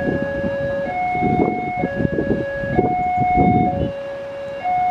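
Railway level-crossing warning alarm sounding, an electronic two-tone signal that switches between a lower and a higher tone about once a second, warning that a train is approaching. Underneath runs the engine noise of waiting traffic, a bus and motorcycles, held at the lowered barriers.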